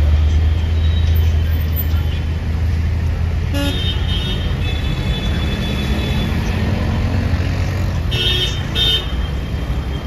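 Busy city street traffic: engines running with a steady low rumble, and vehicle horns honking, once about three and a half seconds in and twice more in quick succession about eight seconds in.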